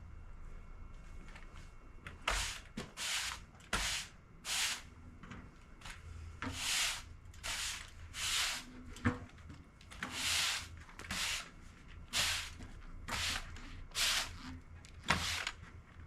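A stiff brush sweeping sawdust off the freshly sawn face of an elm log in a steady run of short scratchy strokes, with one sharp knock about nine seconds in.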